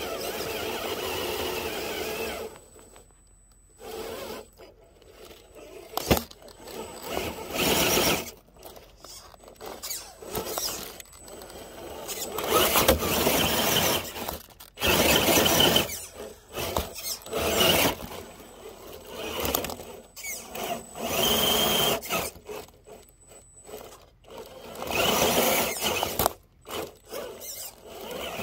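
Electric motor and geared drivetrain of a scale RC rock crawler whining in repeated short bursts as it is throttled up and over rocks, with quiet gaps between the pushes.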